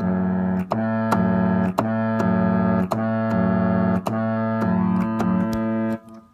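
Electronic keyboard playing a low, detuned chord that imitates a ship's horn, sounded in a series of held blasts with key clicks between them. It is a test of the detuned tuning, which is still not right.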